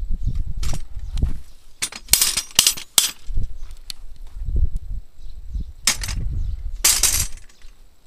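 Steel knock-down plates on a .22 LR plate rack clanking sharply in short groups, the sound of plates being hit and falling and of the rack being reset. There is one strike under a second in, a quick cluster of several between about two and three seconds in, and two more near six and seven seconds, over a low rumble.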